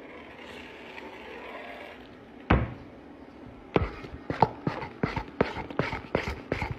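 Fluffy shaving-foam slime being squished and kneaded in a steel bowl. A soft hiss is followed by one loud click about two and a half seconds in, then a run of irregular sticky crackles and pops, a few a second.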